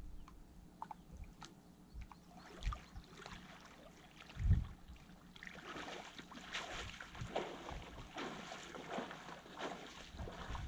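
Water splashing and sloshing as a person wades into a river, faint at first and building up from about halfway through, with a single dull thump shortly before.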